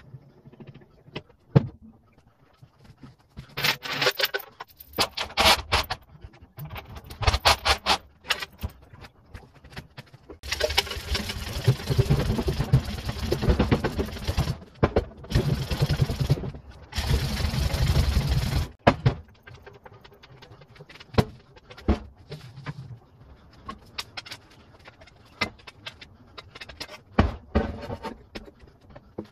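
A hand chain hoist rattling and clanking as it lifts a steel Land Rover Series 3 chassis: a quick run of chain clatter, then scattered metal clanks and knocks. In the middle come three stretches of steady loud noise, each a few seconds long.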